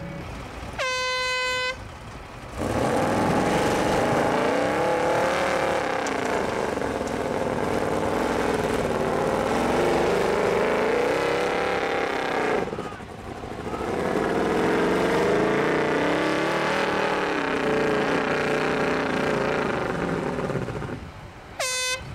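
An off-road buggy's engine revs hard under load, its pitch surging up and down, with a short dip about two-thirds of the way through. A horn blares for about a second near the start and briefly again at the very end.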